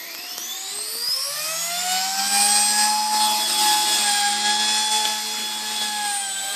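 Align T-Rex 150 micro electric RC helicopter spooling up. A high motor and rotor whine rises in pitch and loudness over the first two seconds as it lifts off, then holds steady at its flat-throttle headspeed while it flies.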